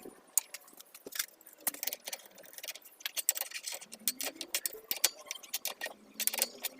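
Irregular metallic clicks and clinks of hand tools as a flywheel puller is fitted and worked on a 110 cc motorcycle engine's flywheel.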